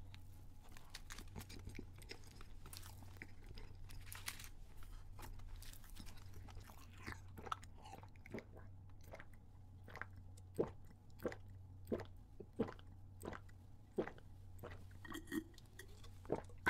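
Close-miked moist chewing of a chocolate muffin, crackly and continuous. About seven seconds in it gives way to steady gulping of chocolate milk from a bottle, one swallow roughly every two-thirds of a second.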